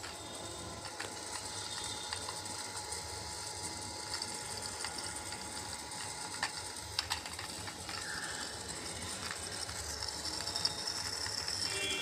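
Small electric motor of an air conditioner's indoor blower running with a steady whir and mechanical ticking, with a few sharp clicks about six to seven seconds in.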